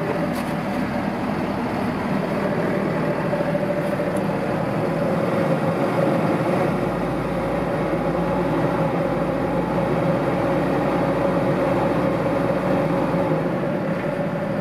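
Fendt 820 Vario tractor's six-cylinder diesel engine heard from inside the cab, idling steadily. It speeds up a little, to about 1,100 rpm, around halfway through and settles back to idle near the end.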